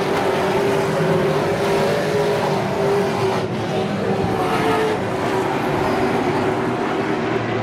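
A pack of Pro Stock race cars' engines running hard together on a short oval, a steady loud drone that swells twice as cars pass nearest.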